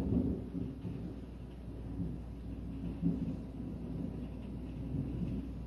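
Thunderstorm: steady rain with low rolling rumbles of thunder, loudest just after the start and again about three seconds in.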